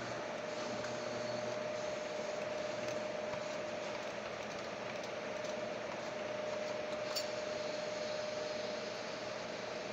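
Claw machine running: a steady hum over a hiss, with one sharp click about seven seconds in.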